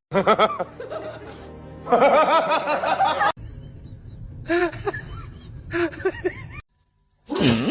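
Music playing, with short bursts of laughter breaking in several times.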